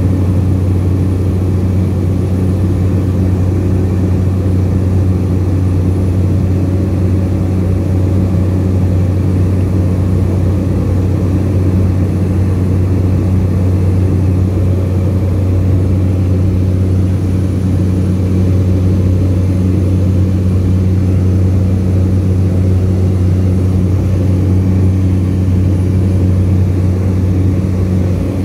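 Steady loud drone of a small high-wing propeller plane's engine and propeller in cruise, heard inside the cabin as a deep, even hum with rushing air noise.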